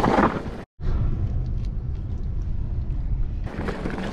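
Mountain bike riding down a dirt trail: a steady low rumble of tyres on the ground and wind on the bike-mounted microphone. The sound cuts out for a moment under a second in, and gets louder and busier, with many short rattles, near the end.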